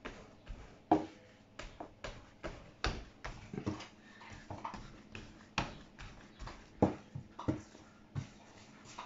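Bread dough being kneaded by hand on a floured worktop: irregular thumps and slaps as it is pressed, folded and pushed against the counter, two or three a second, while it is worked until elastic.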